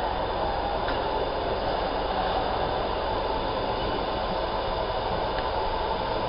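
Steady whirring machine noise of a large-format laser marking machine at work while its laser traces a pattern on steel sheet, with a couple of faint ticks.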